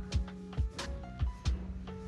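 Background music with held notes and a beat of low drum hits.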